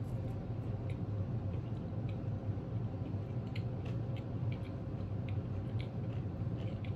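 Close mouth sounds of chewing a bite of bacon cheeseburger: small wet clicks at irregular intervals, over a steady low hum.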